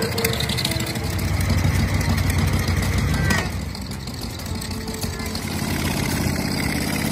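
Several motorcycle engines running and pulling away one after another, loudest from about a second to three seconds in, then a little quieter.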